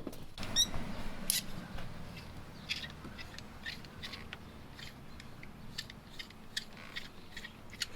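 Coilover parts being handled and worked on by hand: a string of small, irregular metallic clicks and scrapes, with a short squeak about half a second in.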